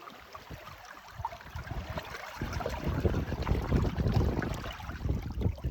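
Sea waves washing in against shoreline rocks: a soft wash that swells into a louder surge about two and a half seconds in, then eases near the end.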